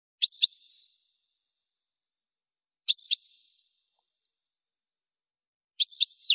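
European goldfinch calling three times, about three seconds apart. Each call is two sharp clicks followed by a drawn-out high whistle that fades; the last whistle falls more steeply in pitch.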